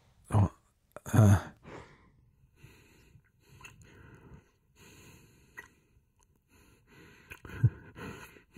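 A man's breathing and sighs close to the microphone: two louder sighing breaths in the first second and a half, then softer breaths, with a short voiced hum near the end.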